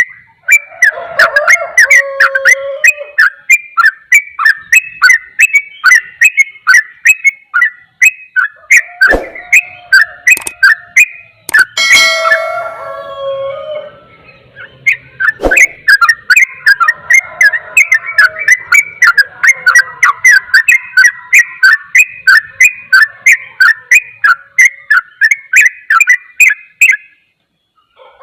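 Yellow-vented bulbul (trucukan) singing a rapid, continuous 'ropel' song: short chattering notes, several a second, in long runs broken by brief pauses. A single harsher, buzzier call cuts in about halfway through.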